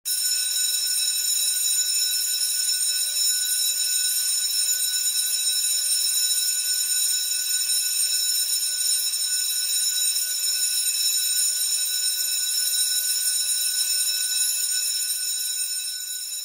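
School bell ringing without a break, starting suddenly and holding a steady, high metallic ring, dropping a little in level near the end. It is the signal that marks the beginning and end of the school day.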